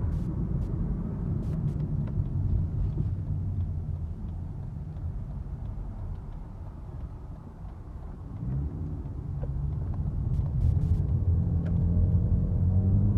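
2016 Jeep Patriot 2.0L four-cylinder with automatic transmission running with a low drone or buzz. The drone eases off toward the middle, then builds again from about eight seconds in into a steadier hum that grows louder toward the end. This is the fault the owner is chasing: a drone that gets louder the heavier the load on the engine and stops in neutral.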